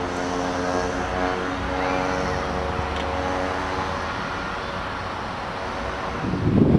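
A distant engine drones steadily on even, level tones that ease off a little toward the end. Wind buffets the microphone near the end.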